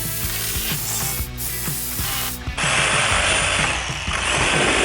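Background music with a steady beat, then about two and a half seconds in a power saw starts cutting through the old barn beam, loud and continuous to the end.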